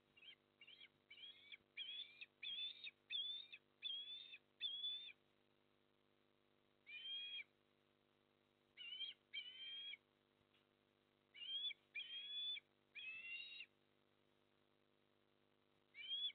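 Eastern osprey calling: a quick run of about ten short, high notes, then more in groups of one to three with pauses between. A faint steady hum runs beneath.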